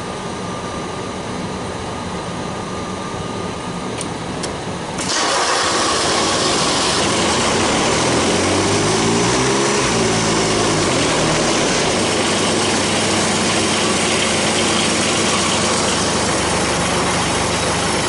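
Mower's diesel engine, glow plugs preheated on a weak, jump-charged battery, starting up about five seconds in and then running steadily. A few seconds after it catches, its speed swings up and down briefly before settling.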